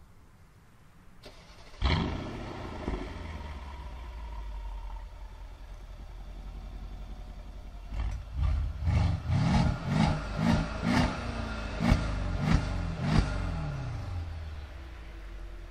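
Mercedes ML63 AMG's 5.5-litre twin-turbo V8, breathing through a Capristo valved exhaust, starting about two seconds in with a loud flare and settling to an idle. From about eight seconds it gets about eight short, sharp revs, then drops back to idle near the end with the exhaust valve closed.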